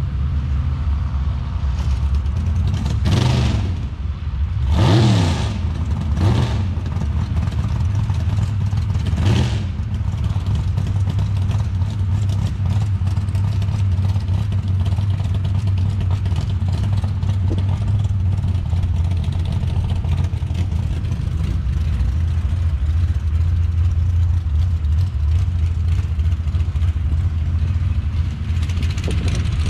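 Sand drag racing vehicles' engines revving, with several loud surges and pitch swings in the first ten seconds over a steady low engine drone.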